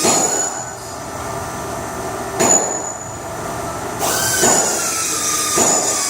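HS-1000 CNC machine's axis drives moving the axes, a steady motor whine with a sharp knock each time a move starts or stops. The whine stops after the first knock. It comes back about four seconds in, a little higher, and then slowly drops in pitch.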